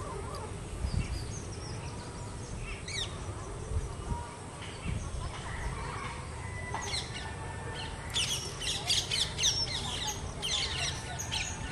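Small birds chirping outdoors, a few scattered calls at first and then a busy run of rapid, quick high chirps over the last few seconds, over a low steady rumble.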